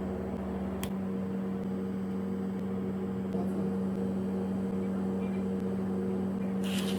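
Steady electrical hum of a running appliance, with a sharp click about a second in and a short rustling burst near the end.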